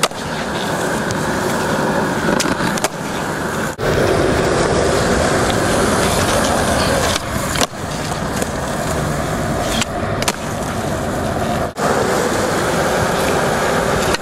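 Skateboard wheels rolling over a smooth court surface, with a few sharp clacks of the board popping and landing. The rolling drops out briefly several times.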